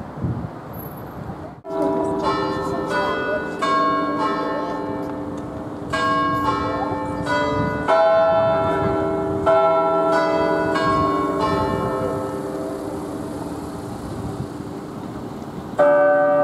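Town hall clock tower bells chiming the hour: a run of struck bells at several pitches plays a tune in groups of notes, each note ringing on. Near the end one louder, deeper bell strikes, the start of the hour strike.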